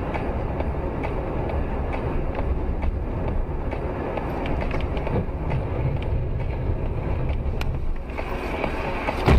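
Steady road and engine rumble heard from inside a moving car, with a sudden loud bang near the end as a car just ahead crashes into the guardrail.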